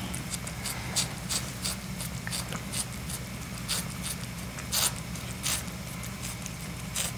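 Mother cat licking her newborn kitten clean: irregular wet licking clicks, a few a second, over a steady low hum.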